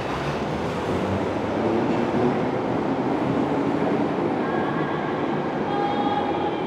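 London Underground Bakerloo line 1972-stock tube train pulling out of a station platform: a steady rumble of wheels and running gear, with whining tones that come and go as it gathers speed.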